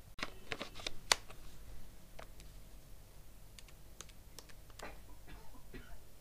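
Light, irregular clicks of keys being tapped on a mobile phone while a sum is entered on its calculator, thickest in the first second.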